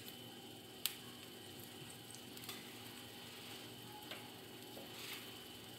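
Faint, steady sizzling of ghee and beaten egg cooking on a hot dosa griddle on a low flame, with a few small clicks, the sharpest about a second in.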